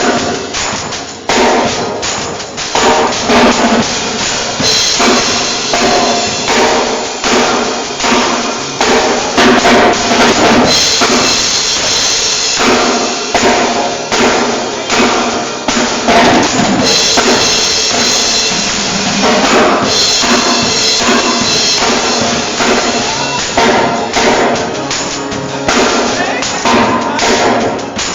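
Drum kit being played: a dense, steady run of bass and snare drum hits, with stretches of brighter high-end wash at times.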